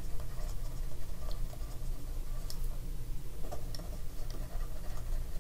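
Plastic stylus tip tapping and ticking on a tablet while writing by hand: a few faint, irregular ticks over a steady low hum.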